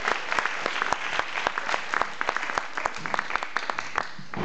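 Audience applauding: many hands clapping, thinning out toward the end.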